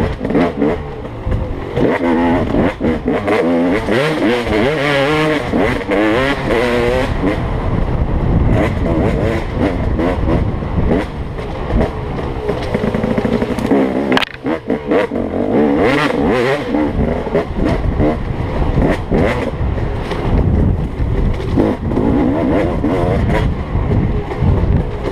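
Dirt bike engine revving up and down as it is ridden hard along a bumpy woods trail, the pitch rising and falling constantly. A sharp knock is heard about fourteen seconds in.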